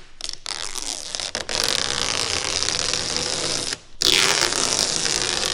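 Plastic protective liner being peeled off 3M double-sided adhesive tape, a long tearing peel in two pulls, with a short break before the second, loudest pull about four seconds in.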